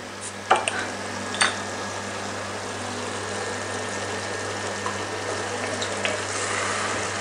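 Beer poured from a bottle into a hot cast-iron pot of shallots and apples frying in butter: a steady splashing pour over the sizzle, the beer foaming a lot as it hits the pan. A couple of light knocks come near the start.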